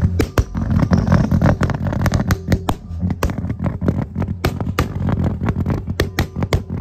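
Classic Mini estate's engine being revved hard, its exhaust popping and crackling in rapid, irregular bangs over the engine's drone.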